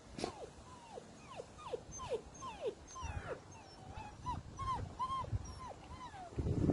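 A German Shepherd dog whining over and over in short falling whimpers, about two a second. Near the end there is a louder low bump.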